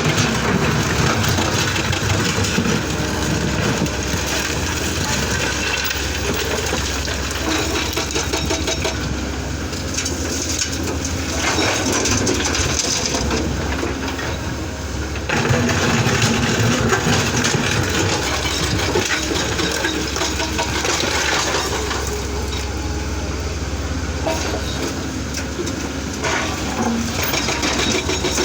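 Excavator's diesel engine running steadily under working load, its level rising and easing in stretches as the machine works, with a clatter of metal over it.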